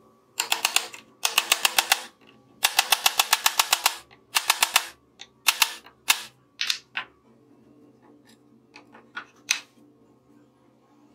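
Hammer blows on a steel punch driving a knurled metal insert into a hole in a laminated plywood plate: several quick runs of sharp metallic taps, about eight a second, then a few single, spaced blows and some lighter taps near the end.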